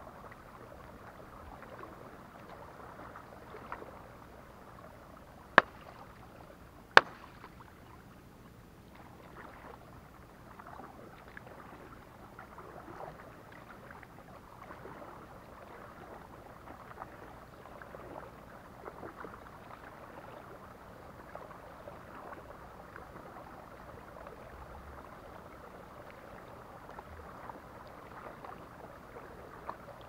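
Canoe paddling on calm water: paddle blades dipping and dripping in a steady run of small splashes. Two sharp knocks, the loudest sounds, come about five and a half seconds in and again a second and a half later.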